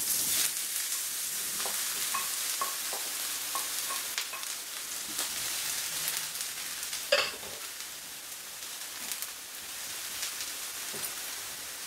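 Diced aubergine sizzling as it is seared in hot fat in a frying pan on high heat, with small clicks and scrapes of a wooden spatula stirring it. The sizzle starts at once as the aubergine goes in, and there is one sharp knock about seven seconds in.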